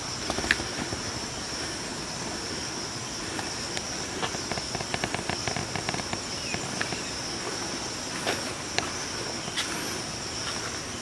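A steady high-pitched insect drone, with scattered clicks and crackles of footsteps through dry leaf litter and twigs, a quick run of them about four to six seconds in.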